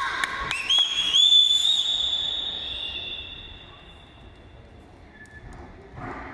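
A high, shrill whistle that slides up in pitch, holds for about a second and fades out, following a few shouts at the start.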